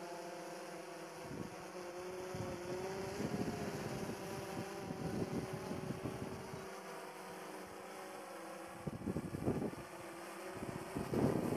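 DJI S1000 octocopter's eight electric rotors humming in flight as it descends, with several steady tones that waver slightly in pitch as the throttle changes. Rough gusts of wind hit the microphone several times, loudest near the end.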